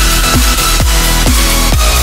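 Background electronic dance music with a steady kick-drum beat, a little over two beats a second, over a steady bass line.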